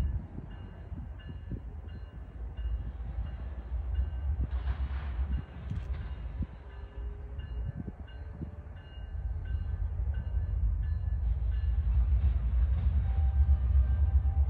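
GE ES44AC diesel locomotive idling: a steady low rumble that grows louder toward the end. A faint high beep repeats about every two-thirds of a second over it, and a short hiss comes about five seconds in.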